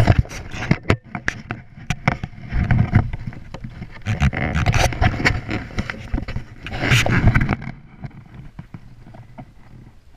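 Handling noise on the camera's microphone: repeated knocks, scrapes and a low rumble as the action camera is carried and moved about. It settles and goes quiet about eight seconds in.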